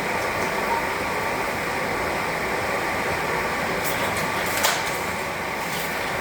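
MIG welding aluminium under pure argon shielding gas: a steady, even arc noise, with a few sharp ticks between four and five seconds in.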